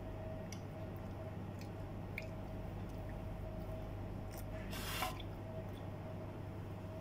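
Faint close-up eating sounds of a person chewing soft, crumbly food: small wet mouth clicks and smacks over a steady low hum, with a brief hiss about five seconds in.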